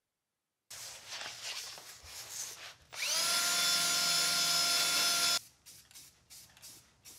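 Cordless drill spinning up and running steadily for about two and a half seconds against the car's underside, cleaning off rust, after some faint scraping and rubbing. A few faint ticks follow near the end.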